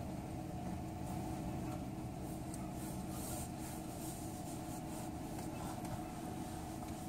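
Steady low hum of a vehicle's engine running, heard inside the cabin, with faint rubbing and rustling now and then.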